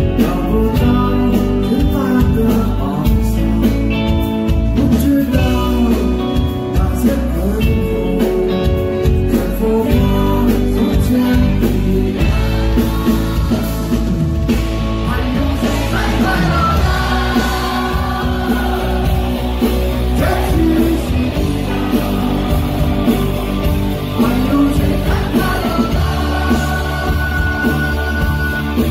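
Live rock band playing: strummed acoustic guitar over electric bass and drums, with a man's voice singing.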